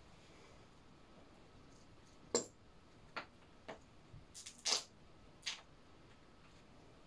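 Half a dozen short, sharp clicks and taps, the first about two seconds in and the last a little past halfway, over a faint steady hiss.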